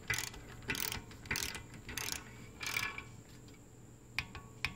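Ratchet torque wrench clicking in about five short runs, roughly two-thirds of a second apart, as it is swung back and forth to run down a cylinder-head bolt on a Briggs & Stratton flathead engine. This is the first pass of the tightening pattern, to 82 inch-pounds. Two sharp clicks follow near the end.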